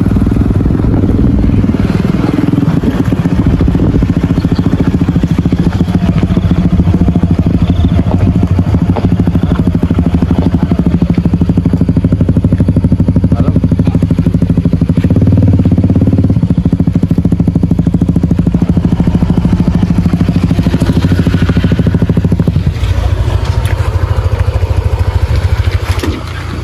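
Motorcycle engines running, first on the move along a dirt track and then idling once the bikes have stopped. The sound thins out a few seconds before the end.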